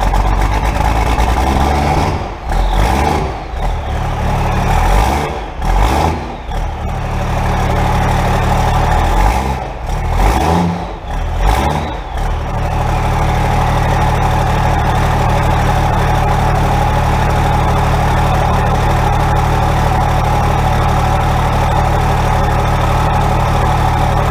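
1992 Dodge W250's 5.9-litre 12-valve Cummins diesel running, revved up and down several times for about the first twelve seconds. It then settles to a steady idle.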